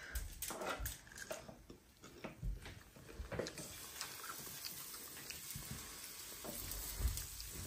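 A metal spoon scraping and clicking against a plastic tub as gram-flour batter is stirred and spooned out, over a faint steady sizzle from the hot tawa. The clicks and scraping come in the first few seconds, after which the sizzle is more even.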